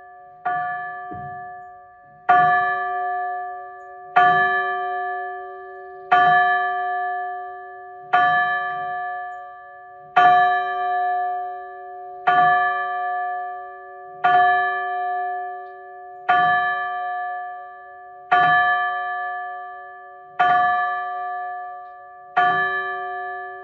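A single church bell in an open belfry, rung by its rope and tolling slowly: about twelve strokes, roughly one every two seconds, each note ringing on and fading before the next. It is a memorial toll, one stroke for each year of the dead person's life.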